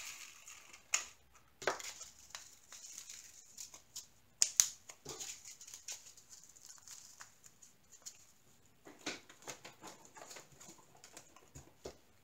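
Small plastic zip bags of diamond-painting drills being handled: light crinkles and clicks of the bag, with a few sharper snaps about a second in and around 4.5 and 9 seconds in.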